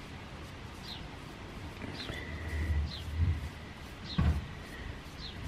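A bird repeats a short, falling chirp about once a second. Under it come low bumps and rustling, loudest about three and four seconds in.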